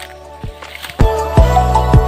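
Background music with a steady beat, about two beats a second, which becomes much louder about a second in.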